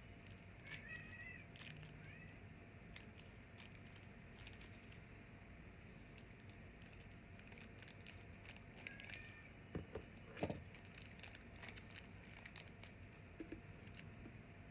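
Faint scattered clicks and rustles of a small package being cut open, the loudest two knocks coming about ten seconds in. Twice, a short, faint, high-pitched meow from a cat in heat.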